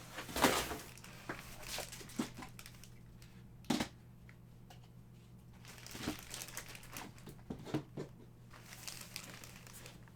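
Plastic packaging and trading cards being handled: crinkling and rustling with scattered sharp clicks, loudest about half a second in and again just before four seconds.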